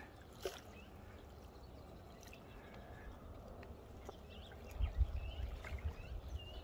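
Quiet lakeside ambience: a few faint short bird chirps, with a low wind rumble on the microphone rising about five seconds in.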